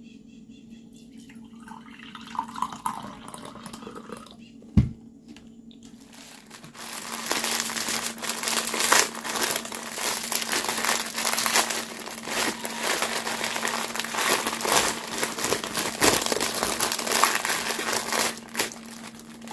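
Plastic packaging crinkling and rustling in irregular bursts, starting about seven seconds in, over a steady low hum; a single sharp knock about five seconds in.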